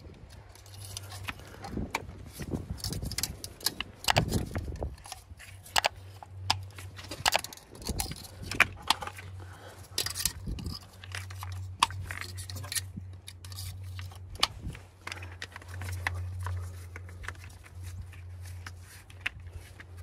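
Irregular small clicks, clinks and rubbing from hand work on an engine: spark plug wire boots pushed onto the plugs and tools handled. A steady low hum runs underneath.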